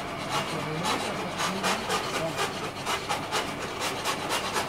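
Gas torch flame hissing against a steel bar clamped in a vise, with a rhythmic scraping of about four strokes a second over it.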